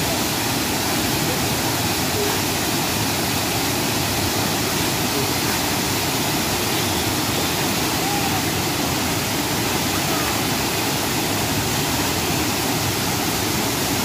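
A large waterfall pouring into its plunge pool at close range: a loud, steady rush of falling water.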